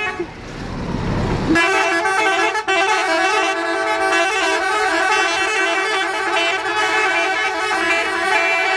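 Telolet bus horn, an air horn with several trumpets, sounding a steady held chord whose upper notes shift, starting about a second and a half in after a short stretch of rushing noise.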